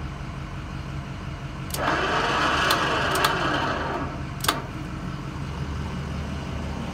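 Ford 6.0 Power Stroke V8 turbo-diesel idling with a steady low hum. From about two to four seconds in, a louder rushing noise with a few sharp clicks rises over it.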